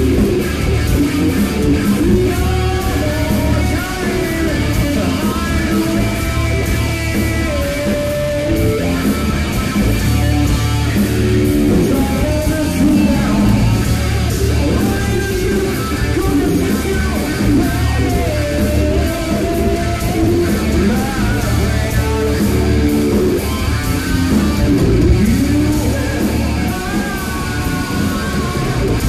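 Hard rock band playing live: distorted electric guitars, bass guitar and drums, with a male singer's lead vocal.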